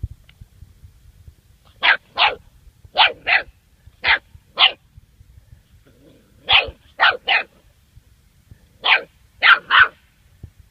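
German Shorthaired Pointer puppy barking in short, sharp yaps, about twelve in quick groups of two or three with pauses between.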